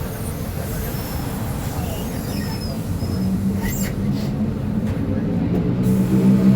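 Diesel engine of a Marcopolo Sênior Midi bus on an Agrale MA 15.0 chassis, running with a low rumble. From about three seconds in, a steady engine note comes through and grows louder toward the end.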